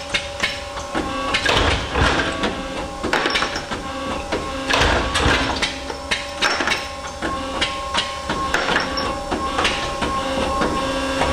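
Small double-sided tube end-forming press running on its own, cycling with repeated sharp knocks and louder bursts every second or two over a steady machine hum.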